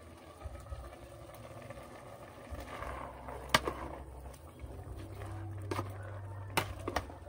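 A metal ladle stirs cassava leaves in a simmering pot, clinking sharply against the pot four times in the second half, over a low steady rumble.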